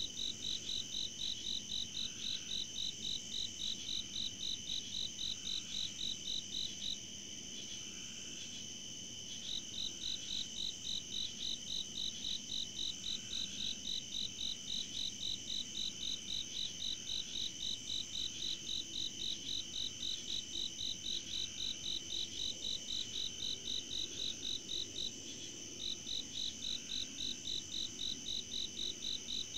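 Night insects, crickets or katydids, chirping in an even, high-pitched rhythm of about three chirps a second over a steady higher drone. The chirping pauses briefly about a quarter of the way in and again near the end.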